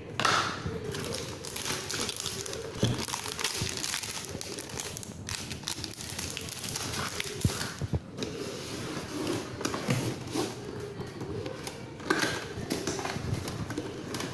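Cardboard packaging being handled: continuous rustling and scraping of the box and its cardboard inserts, with a few sharp knocks.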